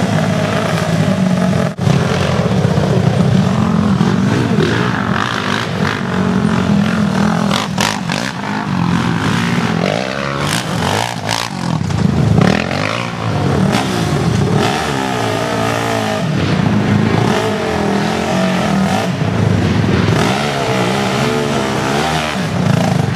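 ATV engine revving again and again, rising and falling in pitch, as the quad is worked to get free of a muddy slope. A few clattering knocks come partway through.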